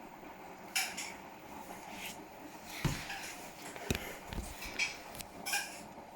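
Hotpoint appliance squeaking: short, high-pitched squeaks recurring every couple of seconds, with a few low thumps in the middle.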